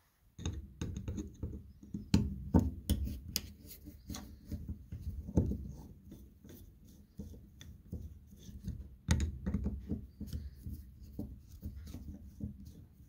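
Hands handling a removed snowmobile fuel pump on a towel: irregular clicks, taps and rubbing from fingers on the metal body and fittings. There are louder knocks about two seconds in and again about nine seconds in.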